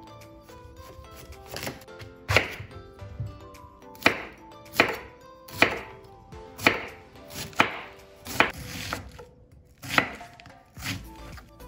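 Chef's knife slicing through a raw cabbage and striking a wooden cutting board: about ten crisp cuts, roughly a second apart.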